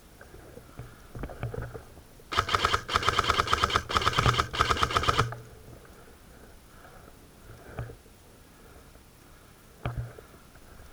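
Airsoft electric rifle firing rapid automatic bursts for about three seconds, starting about two seconds in. Scattered knocks and rustles come before and after.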